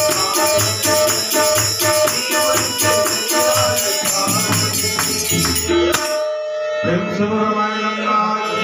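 Devotional bhajan music: harmonium and tabla with small jingling hand cymbals (manjira) keeping a steady rhythm. About six seconds in, the drums and cymbals break off and the harmonium carries on with held notes.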